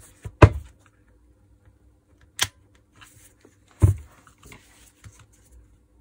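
Three sharp clicks with a few faint ticks between them: a small metal tool working at the plastic mode-switch retaining cap of a Makita HR2450 rotary hammer to pry it loose.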